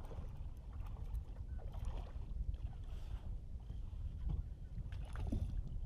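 Steady low wind rumble buffeting the microphone, with scattered faint knocks and small water sounds at the side of a small fishing boat.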